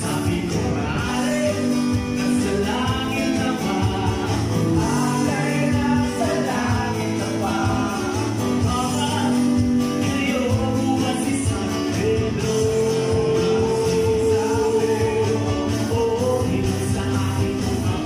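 A small live band playing a song: a male voice singing over acoustic guitar and electronic keyboard, with a long held note about two-thirds of the way in.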